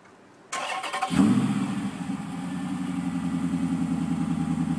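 2012 Chrysler 300 SRT8's Hemi V8 being remote-started. The starter cranks briefly about half a second in, and the engine catches with a short flare at about a second, then settles into a steady, even idle.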